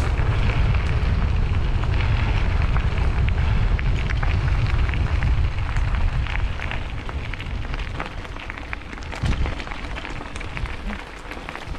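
Wind buffeting the microphone of a mountain bike rider's camera, with many small crackles and clicks from the tyres on the dirt trail and the bike rattling. The rumble eases off after about seven seconds.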